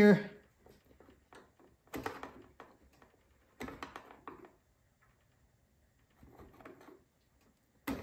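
Faint clicks and knocks of hands working the primer line off a Troy-Bilt Storm 2665 snowblower's carburetor. They come in a few short bouts, about two, four and six and a half seconds in.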